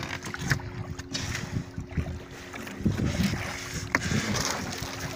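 Rustling plastic bag and soft knocks against a styrofoam cooler as a ribbon fish is handled and packed into it, over a steady low hum.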